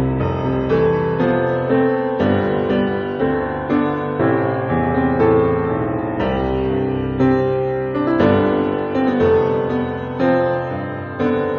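Calm, sunny-feeling instrumental music, its notes struck in a steady, even pulse.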